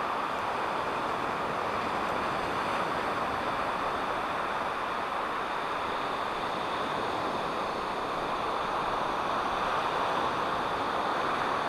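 Steady rushing of wind and ocean surf, with no distinct events.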